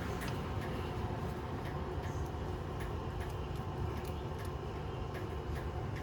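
Scattered light clicks and taps from handling the removed brake caliper and pads, over a steady low hum.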